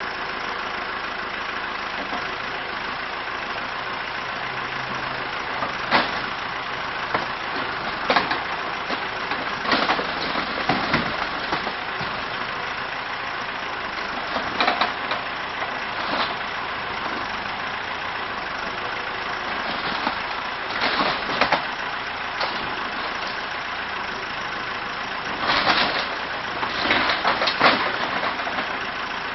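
Backhoe's diesel engine running steadily while its bucket tears into a mobile home's structure. Sharp cracks and crunches of breaking material come every few seconds, with a burst of them near the end.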